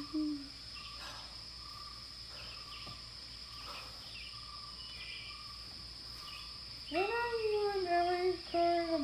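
Night insect ambience with a steady high chirring and a few faint chirps. About seven seconds in, a long, low, wavering hooting call starts: a brachiosaurus call from the film's sound design.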